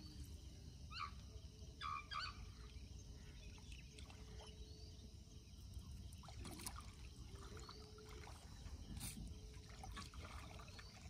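Faint water trickling and lapping around a small wooden fishing boat, with a few short high chirps about one and two seconds in.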